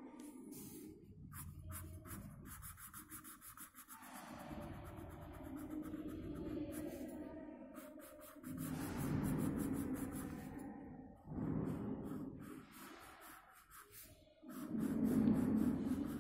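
Colour pencil shading on paper: rapid back-and-forth scratchy strokes in several bursts with short pauses, the loudest stretches coming about halfway through and near the end.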